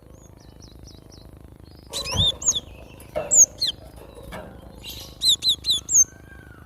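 Cinereous tit (glatik batu) calling in short bursts of quick, high, sharply sliding chirps, starting about two seconds in. A thump comes just after the first burst begins.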